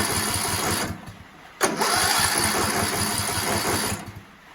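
Briggs & Stratton 17.5 hp lawn mower engine cranked on its electric starter in two tries. It turns over with an even rhythmic chug: it stops about a second in, starts again suddenly half a second later, and cuts off near the end without the engine catching. The owner suspects the carburettor is not getting fuel.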